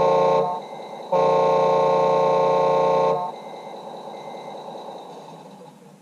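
Horn blasts from an RC model vehicle's sound module: a short honk, then after a pause a long blast of about two seconds, over the model's steady engine hum.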